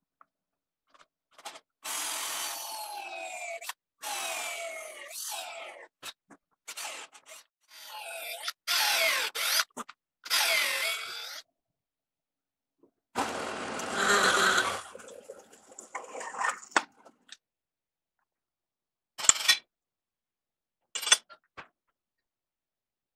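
Cordless drill with a long auger bit boring into a dense, linseed-oil-soaked white oak beam in about four runs of a few seconds each, its pitch falling as the bit loads up. A shorter, noisier burst follows, and near the end there are two sharp knocks.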